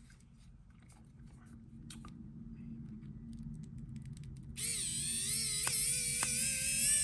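Pen-style electric precision screwdriver running, backing a band screw out of a G-Shock watch case: a motor whine with a slightly wavering pitch that starts about four and a half seconds in, after a few faint handling clicks.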